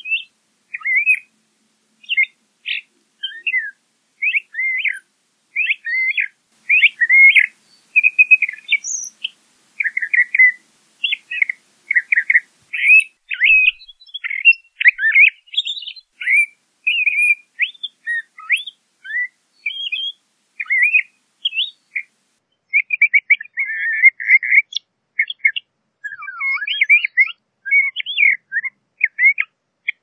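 LeConte's thrasher singing: a long run of short, varied phrases, one after another with brief gaps.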